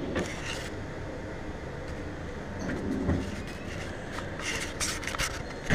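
Wooden plywood drawer running on its undermount drawer slides, a steady rolling rumble, with a knock about three seconds in and a few sharp clicks near the end.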